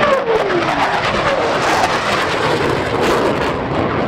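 F/A-18 Hornet fighter jets passing low overhead: a loud, steady jet-engine rush with a crackle in it. A tone falls in pitch during the first second as the jets go by.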